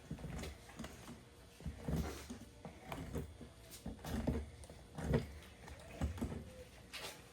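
Hands working inside a plucked chicken's body cavity, scraping the lungs off the ribs beside the spine: a run of irregular soft knocks and clicks with low thuds.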